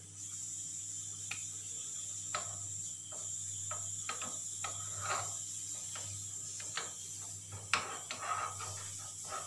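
Metal spoon scraping and clinking in a small steel pan while scooping melted wax: scattered small clicks, with a sharper one near the end, over a steady high hiss and low hum.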